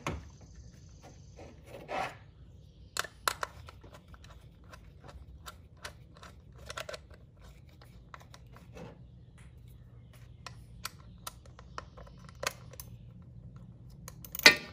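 Scattered light clicks, taps and rustles of hands working on an engine's ignition coil and its mounting bolt, with one sharper click near the end.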